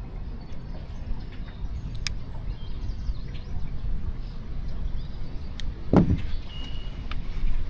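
Steady low rumble of wind on the microphone outdoors, with faint scattered clicks and a short high chirp, and one dull thump about six seconds in.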